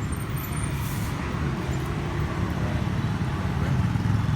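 Road traffic with a motor vehicle engine running: a steady low drone that grows a little louder near the end.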